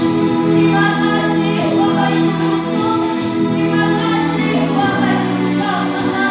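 Primary-school children's choir singing a slow song with musical accompaniment, holding long notes that change about every second or two.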